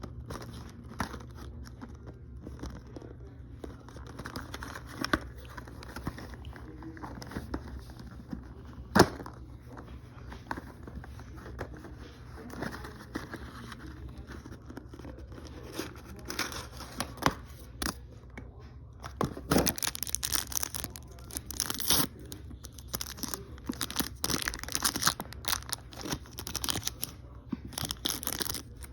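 Toy packaging being opened by hand: scattered clicks and rustles, one sharp snap about a third of the way in, then denser crinkling and tearing over the second half.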